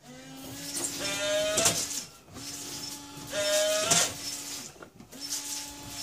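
Audi Avant's headlamp washer system cycling three times, each cycle about two seconds long and starting roughly every two and a half seconds. Each cycle is a steady pump whine with a higher rising tone and a hiss of water as the extended nozzles spray the headlamps. The system is working again.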